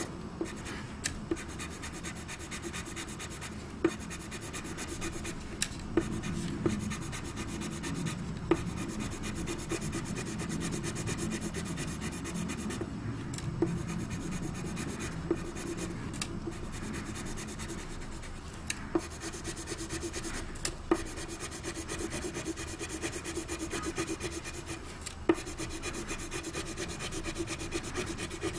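Coloured pencil rubbing and scratching on drawing paper in continuous shading strokes. A sharp tick cuts in every few seconds.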